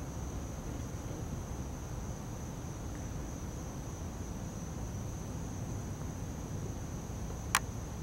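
A steady high-pitched insect trill over a low outdoor hum, with a single sharp click near the end: a putter striking a golf ball.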